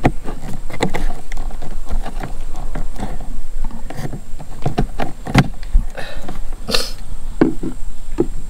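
Irregular clicks and knocks of hands working in a scooter's fuse box, pulling out a 7.5 A fuse, with a brief hiss about six seconds in.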